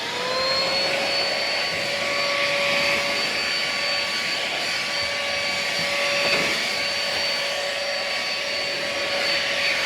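JIGOO C300 cordless stick vacuum spinning up with a rising whine, then running steadily with a high motor whine and rushing air while vacuuming car upholstery.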